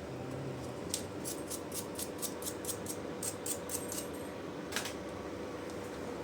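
A quick run of about a dozen light, sharp clicks, roughly four a second, then a single stronger click about a second later, over a steady hum, from small hand work during a drone repair.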